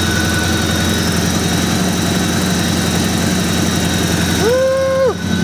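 1965 GMC 2500 pickup engine idling steadily through its headers while warming up. A short held tone sounds over it about four and a half seconds in.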